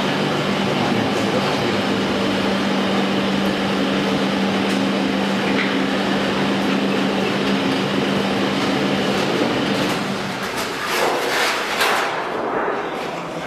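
Tenon press for solar water heater outer tanks running with a steady mechanical hum and clatter. The hum stops about ten seconds in, followed by a few louder knocks and rattles.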